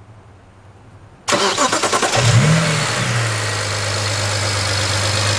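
BMW 335i's N54 twin-turbo inline-six being started: the starter cranks for under a second, the engine catches with a brief rev flare, then settles into a steady idle.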